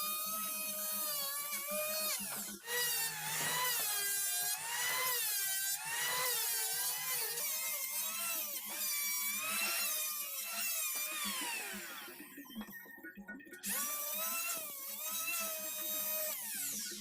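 A high-speed electric woodworking power tool whines, its motor pitch dipping and recovering again and again as it bites into the wood. It slows further about two thirds of the way through, then comes back up.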